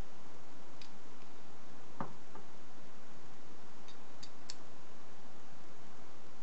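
A handful of light metal clicks and taps as a steel hook spanner is fitted around a slotted lock nut, the loudest about two seconds in and a few quick high clicks around four seconds in, over a steady hiss.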